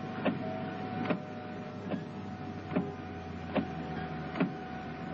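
A sharp click repeating evenly, about every 0.8 seconds (six times), over a steady low hum.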